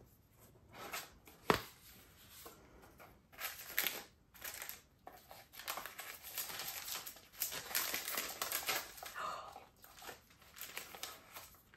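Paper rustling and crinkling as a small cardboard Hermès box is opened and the paper wrapping inside is unfolded, with a sharp tap about a second and a half in.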